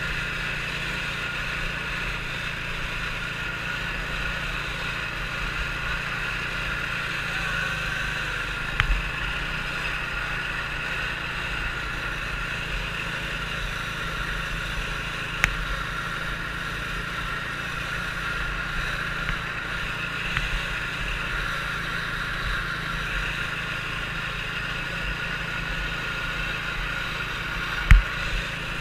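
Small youth 120-class snowmobile engine running steadily as the machine rides the course, picked up by a camera mounted on the sled. A few brief knocks from bumps, the loudest near the end.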